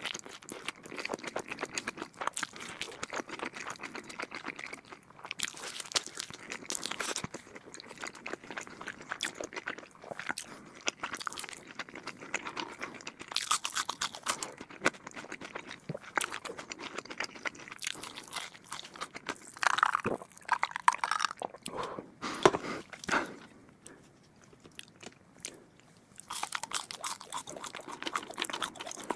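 Close-miked eating: a person biting and chewing food with wet crunching and smacking, in irregular clusters, with a brief quieter pause a little after the middle.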